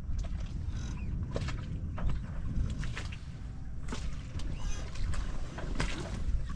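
Sailboat at anchor: a steady low rumble with scattered knocks, clicks and short rattles from the boat's gear, a few of them ringing briefly.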